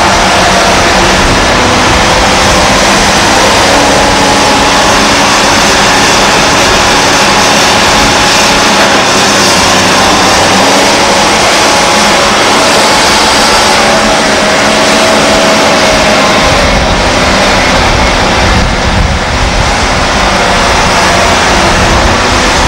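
Liebherr R962 hydraulic excavator's diesel engine running loud and steady under digging load, with whining tones that waver up and down as it works; the low rumble grows heavier about two-thirds of the way through.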